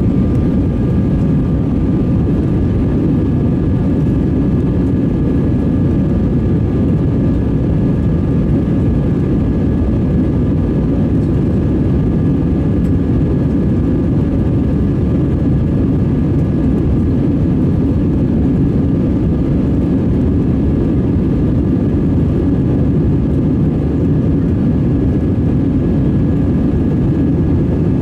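Steady cabin noise inside an Airbus A320-216 in flight: the low rumble of its CFM56 jet engines and the rush of air over the fuselage, unchanging throughout, with two faint steady whining tones riding above it.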